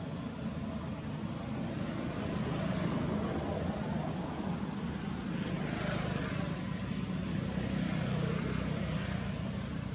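A steady low engine drone that swells through the middle and eases off near the end, like a motor passing at a distance.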